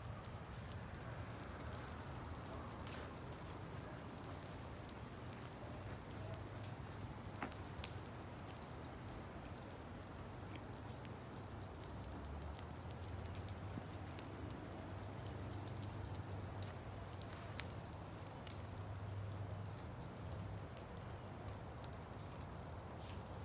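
Falling wet snow and sleet pattering steadily on the yard and plants, with scattered light ticks, over a low steady rumble.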